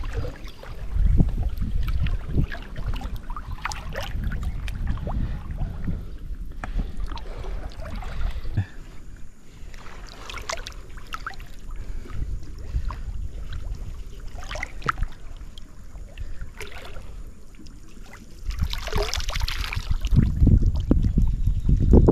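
Water sloshing and splashing around someone wading through a river, with wind rumbling on the microphone. A louder splash comes about nineteen seconds in.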